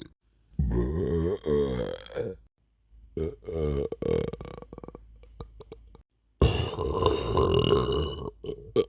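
A person burping three times, long drawn-out burps with a wavering pitch, the third starting a little past six seconds in.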